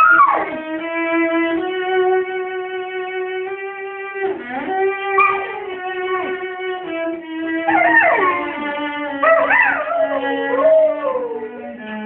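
A cello playing long bowed notes while a dog howls along, its voice sliding and wavering in pitch over the held notes. The howling is strongest in the second half.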